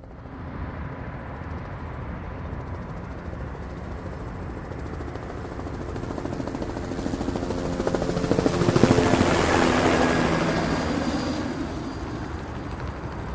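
Helicopter flying overhead: the rotor noise grows louder, peaks about two-thirds of the way in with a rapid beating, then fades as it passes.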